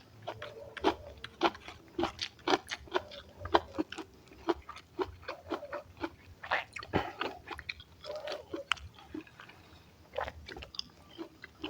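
A person chewing and biting a mouthful of food: irregular wet smacks and crunches, a few every second.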